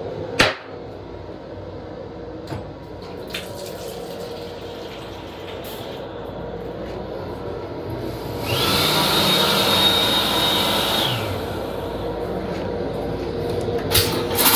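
Metro-North M7 rail car toilet flushing: about three seconds of loud rushing with a steady high whine, starting a little past the middle. A sharp clack as the toilet seat is lowered comes just after the start, and a couple of clicks come near the end, over the steady hum of the rail car.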